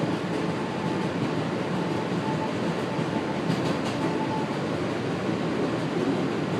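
Steady running noise of a New York City N subway train heard inside the car: a continuous rumble of wheels and car body, with a faint whine coming and going.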